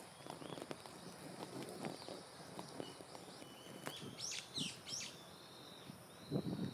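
Quiet outdoor ambience of birds calling: scattered short chirps, with a quick flurry of sharper calls about four and a half seconds in, over a faint low rustle. A brief louder low rustle comes near the end.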